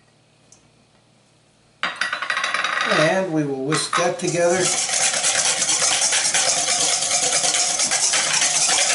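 Wire whisk beating egg and mayonnaise in a stainless steel mixing bowl: a fast, continuous scraping rattle of wire against the metal bowl that starts abruptly about two seconds in.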